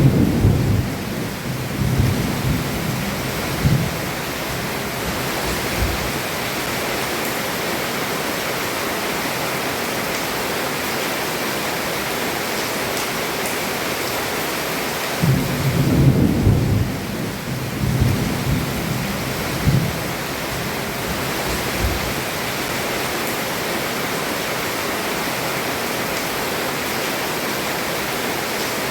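Heavy rain falling steadily on a roof, with thunder rumbling twice: once at the start for a few seconds and again about fifteen seconds in.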